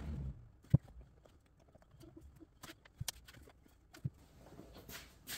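Sheet-metal air-intake heat shield being handled on a workbench while a rubber edge gasket is pressed onto its rim: scattered knocks and taps, the loudest a sharp knock about three-quarters of a second in.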